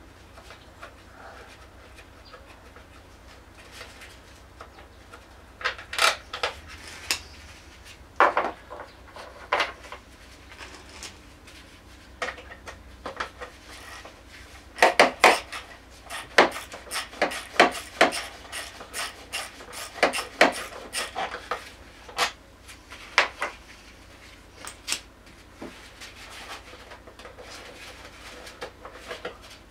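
Scattered metallic clinks and clicks of a socket and loose bolts being handled and set down on the scooter's plastic floor panel during engine work, busiest in the middle.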